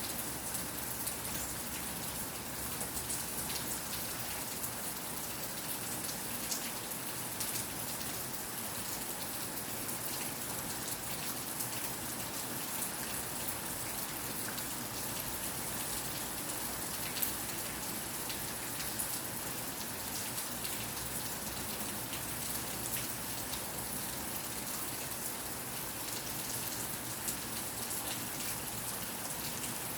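Steady rain falling, an even hiss with many small drop taps scattered through it.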